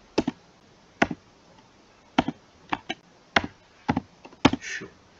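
Computer keyboard being typed on: about a dozen sharp key clicks at irregular intervals, several in quick pairs.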